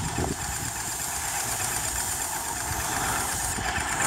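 Small engine of a paint sprayer running steadily, with a continuous hiss over a low rumble.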